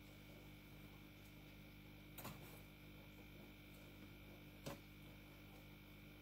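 Near silence: a steady low electrical hum, with two faint clicks, one a little over two seconds in and one near five seconds.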